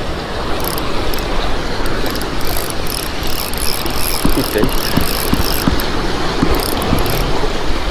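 Spinning reel being cranked, its gears whirring in spells, over a steady rushing wash of sea water. A few soft knocks of the rod and reel being handled come in the second half.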